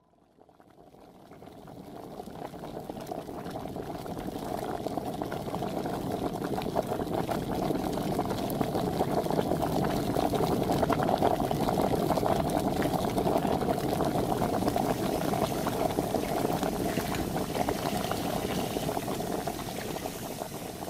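Water bubbling at a boil in a steel pot on a gas hob, fading in from silence over the first few seconds and then bubbling steadily.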